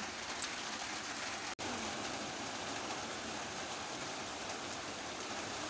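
Heavy rain falling steadily, a constant even hiss, with a split-second break about one and a half seconds in.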